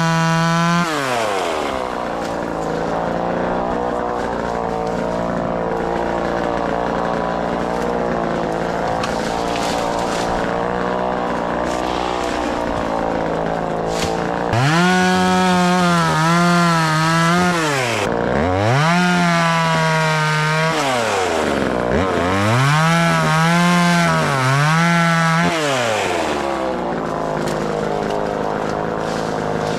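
Vevor 12-inch 25cc two-stroke chainsaw running: it drops from full revs to a lower speed about a second in, then is revved high three times in a row about halfway through, dipping between each, before falling back.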